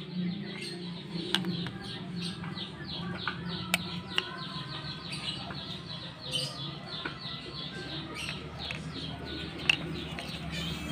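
Birds chirping in the background, a fast run of short repeated chirps several times a second, over a low steady hum. A few sharp clicks from a wooden slingshot being handled on a tiled floor.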